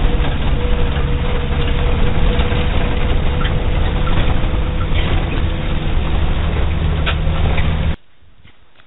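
Minibus engine and road noise heard from inside the cabin while driving, a loud, steady rumble with a faint steady hum over it. It cuts off abruptly near the end.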